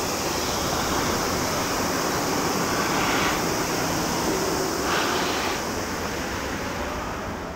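Jet engines of a departing Boeing 787-10 airliner heard from the ground as it climbs away: a steady, even rushing noise that eases slightly near the end.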